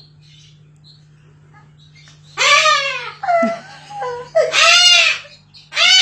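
White cockatoo screeching: after a couple of seconds of faint chirps, a run of about four loud calls that each rise and fall in pitch.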